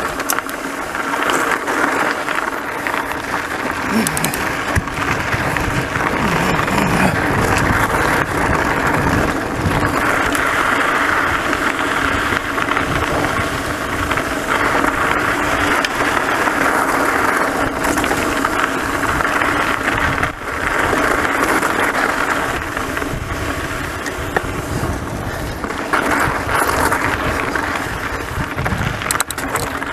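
Mountain bike rolling over a rocky dirt trail: tyres crunching on loose gravel and stones, with a constant rattle and knocking from the bike and the handlebar-mounted camera over the bumps.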